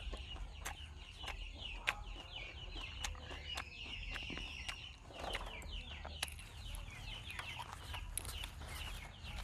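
Many small birds chirping in quick, short falling notes, busy and continuous, with sharp clicks scattered over it.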